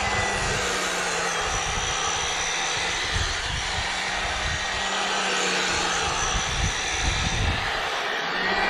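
EGO POWER+ battery power head with its 22-inch bristle brush attachment running steadily, the spinning brush sweeping dead grass off a lawn in a light spring cleanup.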